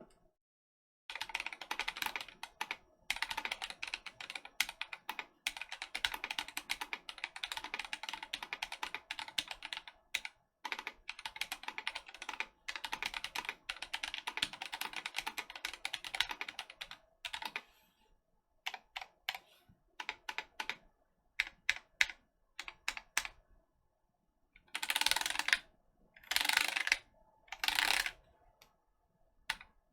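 Typing on a Vortex Race 3 75% mechanical keyboard fitted with Gazzew Boba U4T tactile switches and no case foam. Fast continuous typing runs for most of the first seventeen seconds. Spaced single key presses follow, then three short dense flurries of keystrokes near the end.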